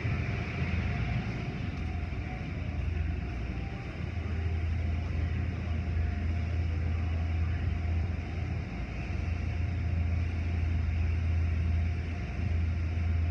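Automatic car wash tunnel machinery running behind a glass viewing window: a steady low rumble of motors under a hiss of spraying water and spinning brushes.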